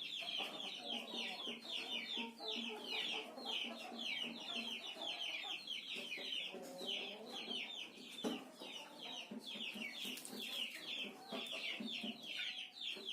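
Chickens calling: a continuous run of short, high, falling peeps, several a second, over lower clucking.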